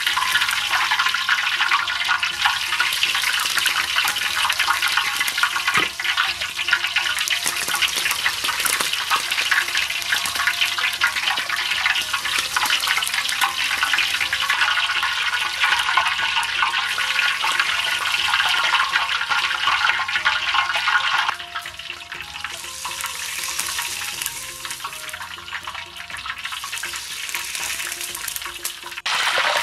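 Hot oil ladled over a hanging pork knuckle, pouring and splashing back into the wok with a steady sizzle: the skin, brushed with crisp-skin glaze, is being crisped. The sound drops about two-thirds of the way through and goes on quieter.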